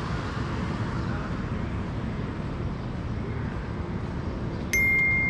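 Steady traffic rumble of a busy city street. Near the end a loud, high-pitched steady tone starts suddenly and holds.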